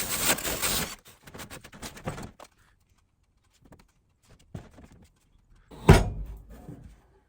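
A loud hissing workshop noise cuts off about a second in. Light clicks and clatter of handling follow, then one heavy thunk about six seconds in.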